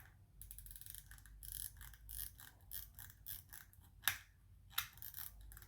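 Ratchet clicking from the winding mechanism of an Elgin B. W. Raymond railway pocket watch as it is wound: a fast run of small, even clicks, then a couple of sharper single clicks near the end.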